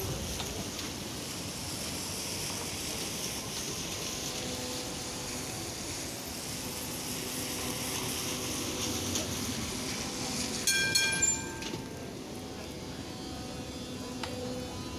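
A Z3-class tram rolling slowly past on wet, curved track: a steady rumble and hum over the hiss of the wet surface. About eleven seconds in comes a brief, loud, high-pitched ringing tone.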